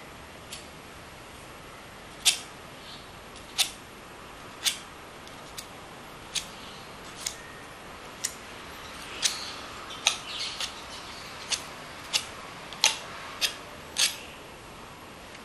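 Metal palette knife dabbing and scraping acrylic paint onto a stretched canvas: a string of sharp, irregular clicks about one a second, with a few rougher scrapes a little past the middle.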